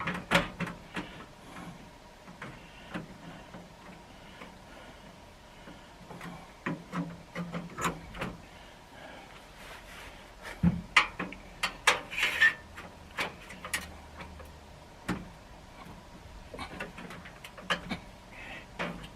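Irregular clinks, clacks and knocks of hand tools and tool-box parts being handled, with a dense run of sharper knocks about halfway through.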